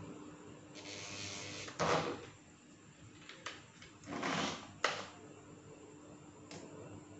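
Handling noise of a power drill being set against the plastic motorcycle fairing: two short scraping rustles, each ending in a sharp click, with a few lighter clicks between and after.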